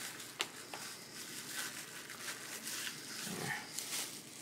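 Crumpled cellophane crinkling and rubbing as it is pressed over glued decoupage paper on a wooden cutout to push out air bubbles, with scattered small crackles and clicks. A brief low voice-like sound comes a little past three seconds in.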